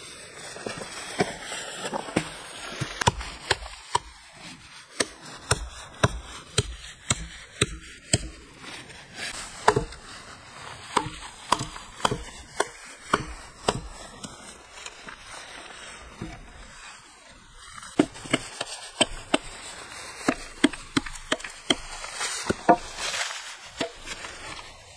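Hand axe chopping and trimming a wooden pole: a run of sharp wooden strikes, about one or two a second, that breaks off for a few seconds partway through and then resumes.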